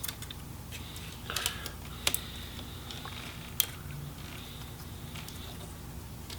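A few light clicks and taps of small parts being handled inside an opened laptop, as a ribbon-cable connector is worked loose from the motherboard. The sharpest clicks come about two seconds and three and a half seconds in.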